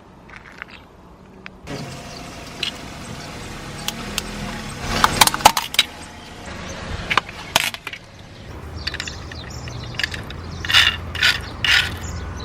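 A car rolling slowly over brittle objects, its tyre crushing them with clusters of sharp cracks and snaps over the low rumble of the car.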